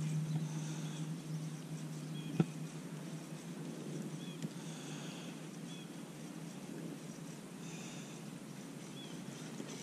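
Electric trolling motor on a bass boat humming steadily, then fading about two seconds in after a single sharp click, leaving faint open-water background.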